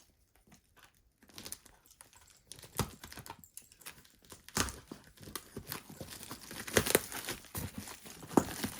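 Tightly wrapped parcel packaging being crinkled and torn by hand as someone struggles to open it: irregular rustling with sharp crackles. It is quiet for about the first second, then the crackles come thick and fast, loudest near the end.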